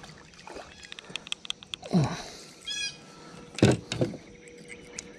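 A small bass is reeled in splashing at the surface and lifted from the water, with a short falling creak about two seconds in and a couple of knocks around the boat. A bird calls briefly in the background.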